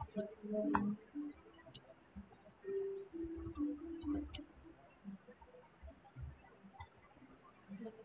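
Typing on a computer keyboard: light, irregular key clicks.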